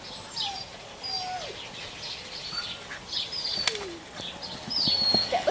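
Birds chirping and singing: many short high chirps and a few sliding whistled notes. A sharp click comes a little past the middle, and a few soft low thuds come near the end.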